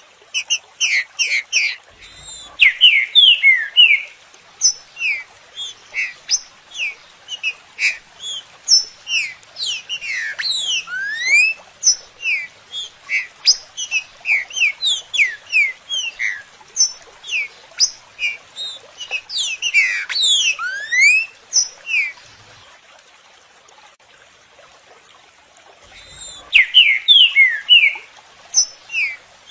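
Trinca-ferro (green-winged saltator) song played as a stimulus recording: rapid runs of short, clear whistled notes and quick pitch slides, in phrases. The singing pauses for about three seconds in the last third, then starts again.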